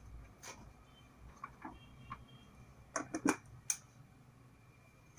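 A few light, sharp clicks and taps of small hard objects being handled, with a quick group of three about three seconds in, over quiet room tone.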